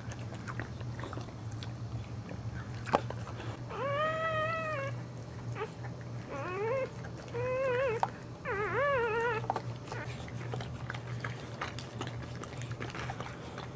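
Boxer dog whimpering: four short, high-pitched, wavering cries between about four and nine and a half seconds in, with a few soft clicks and a steady low hum behind.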